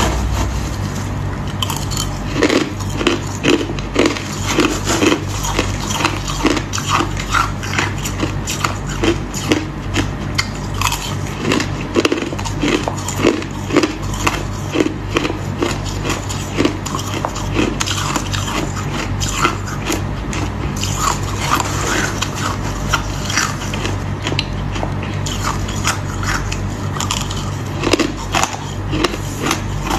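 Ice being bitten and chewed: runs of crunches, several a second, with short pauses between bites.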